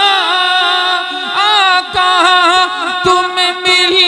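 A man singing a naat, an Urdu devotional song in praise of the Prophet, into a microphone. He draws out long, ornamented notes whose pitch bends and wavers, with a few short breaks near the end.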